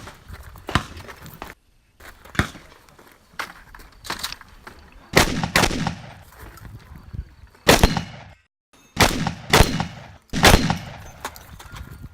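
Shotgun fired in a rapid, irregular string of shots, each a sharp report with a ringing tail; fainter shots come first and the loudest cluster about halfway through and near the end.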